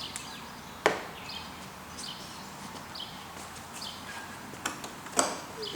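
Two sharp clicks, about a second in and again near the end, from tools being worked on a vintage Daisy Model 99 BB gun. Faint bird chirps sound behind them.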